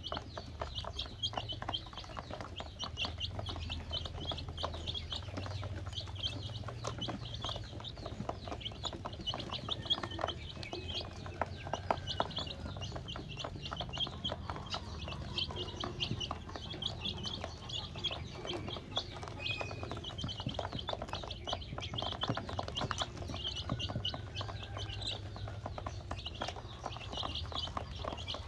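A group of baby chicks peeping continuously in short, high cheeps, with many small clicks of their beaks pecking feed against a plastic tub.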